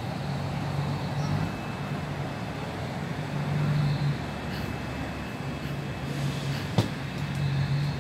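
Steady outdoor background noise with a low motor hum that swells and fades several times, and a single sharp click near the end.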